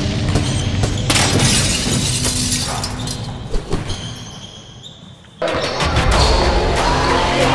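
Intro sting for a sports highlight show: music with a sudden crashing hit about a second in that slowly fades away. About five and a half seconds in, a backing music track starts.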